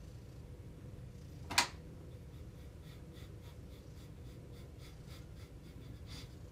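Domestic cat purring steadily in a low, fluttering rumble, with the soft rubbing of a hand stroking its fur. One sharp click about a second and a half in.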